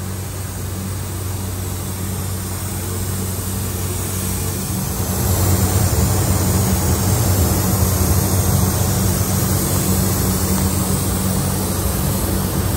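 Air-fed paint spray gun hissing as paint is sprayed, over the steady low hum of the paint booth's air system. The hiss grows louder about five seconds in.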